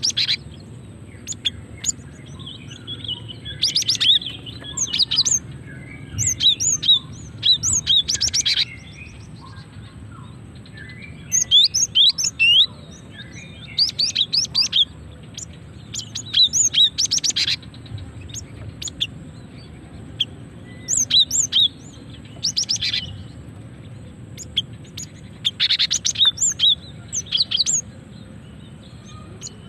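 Female cinereous tit (gelatik batu) calling to males: clusters of quick, high chirps lasting about a second, repeated every second or two with short pauses.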